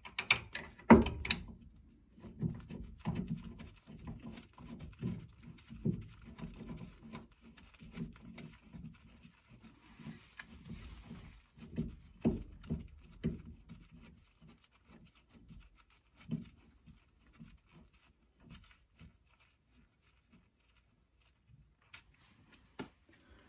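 Hand tools working the caliper bolts: irregular metallic clicks and knocks, with the loudest knock about a second in, thinning out to a few clicks near the end, as the rotor and caliper are bolted up.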